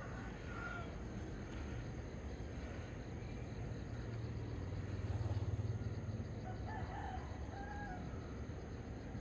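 A rooster crowing in the distance, once near the start and again late on, over a steady low rumble that swells in the middle.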